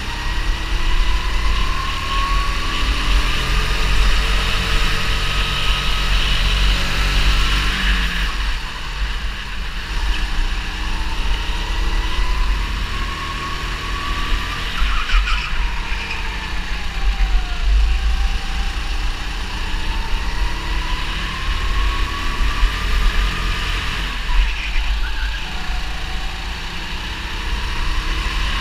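A 270 cc four-stroke kart engine heard from the driver's seat. Its pitch climbs steadily as the kart accelerates and falls sharply three times as it slows for corners, over a strong low rumble.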